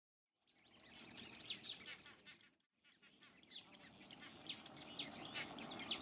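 A chorus of several birds singing and calling together: quick chirps and short downward-sliding whistles over a steady outdoor hiss. It starts about half a second in, drops out briefly after about two and a half seconds, then resumes.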